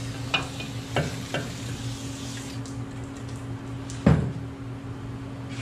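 Aerosol brake cleaner hissing as it is sprayed onto a truck's wheel spindle, with a few light clicks in the first second and a half and one loud thump about four seconds in.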